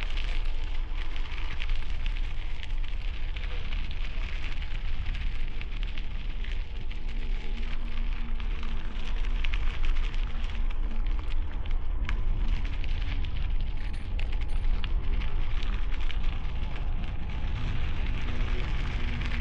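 Bicycle tires crunching and crackling over gravel, under a steady low rumble of wind buffeting the helmet-mounted camera's microphone. Faint road traffic hums in the background, most plainly in the middle.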